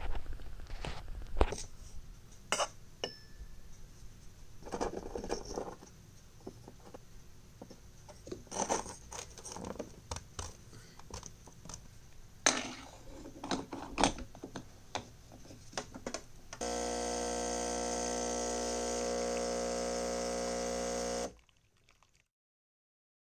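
Clicks and knocks of a coffee grinder and an espresso machine's portafilter being handled and fitted. Then the espresso machine's pump buzzes steadily for about four and a half seconds while it brews, and it cuts off near the end.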